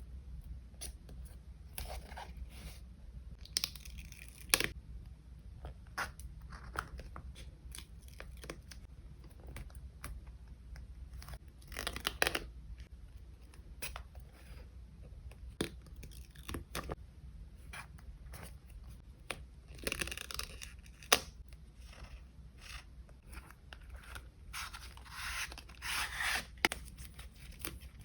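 Paper collage materials being handled and torn: scattered sharp taps and clicks with several short bursts of tearing paper, the longest near the end.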